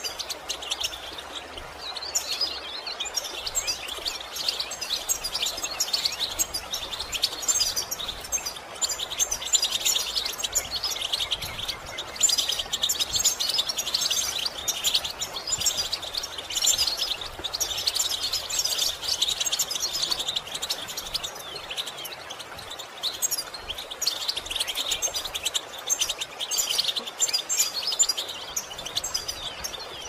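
Songbirds chirping and twittering continuously in quick, high runs of notes over a steady background hiss. The birdsong thins out briefly about two-thirds of the way through.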